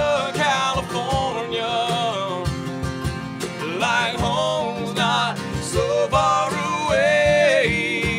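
Live acoustic country song: several acoustic guitars strummed together under a male lead vocal.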